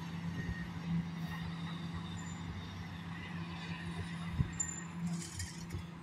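Demolition excavators' diesel engines running steadily, with a single sharp knock about four and a half seconds in.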